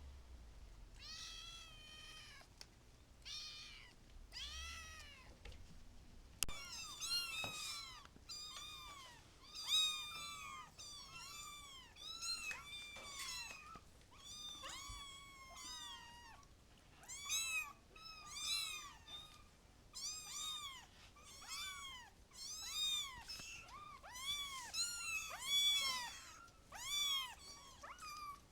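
Kittens meowing: short, high-pitched calls over and over, coming thicker and overlapping after about six seconds.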